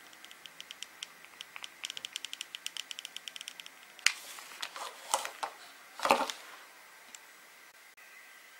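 Hot glue gun being squeezed, its trigger and feed giving a quick run of light clicks for about three seconds, followed by a few louder handling knocks and rustles.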